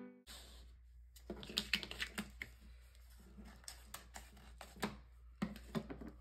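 Adhesive craft vinyl being handled on a plastic cutting mat: an irregular run of crackles, taps and rustles, with scissors snipping through the vinyl sheet in the second half.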